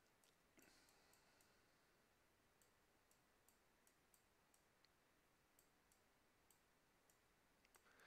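Near silence, with faint scattered clicks.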